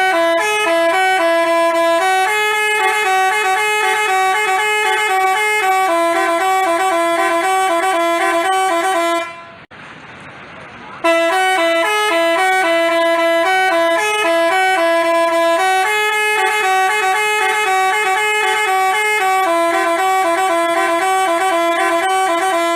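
Basuri telolet bus horn playing a melody of quick, stepped horn notes. It plays two long phrases with a short pause about nine seconds in.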